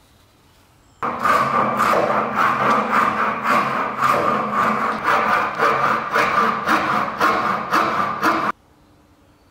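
A round steel file rasping back and forth through a drilled hole in a wooden scythe grip, in rapid even strokes. It starts about a second in and stops abruptly about a second before the end.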